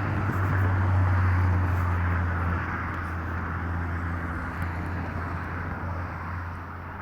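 A distant engine hum over a wash of noise, loudest about a second in and then slowly fading.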